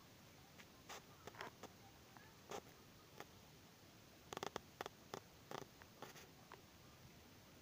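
Faint, scattered scratchy rustles and clicks over near silence, with a quick cluster of sharper ones about four and a half seconds in.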